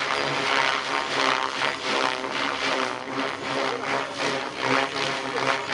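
RC helicopter flying 3D aerobatics: main rotor whirring over a steady motor hum, the blade noise swelling and fading about twice a second as the helicopter flips and rolls.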